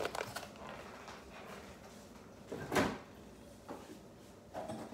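A refrigerator door pulled open, a single short thump a little over halfway in, with a few faint knocks from inside the fridge after it.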